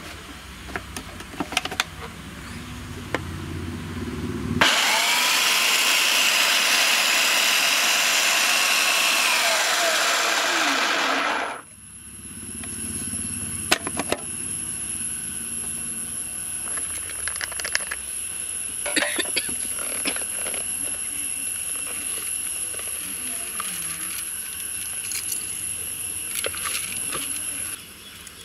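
Electric food processor chopping green chillies: the motor whirs loudly for about seven seconds, rising in pitch as it spins up and falling as it stops. A quieter steady hum with scattered clicks and knocks follows.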